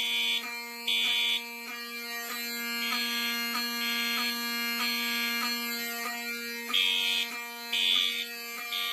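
Two fire alarm horns sounding together. A Wheelock 7002 horn sounds continuously as a steady buzzing tone. Over it, a Cerberus Pyrotronics MTL-S17F (FCI HE8F) horn on code 3 gives higher-pitched blasts in the temporal-three pattern: three blasts about a second apart, then a pause, repeating.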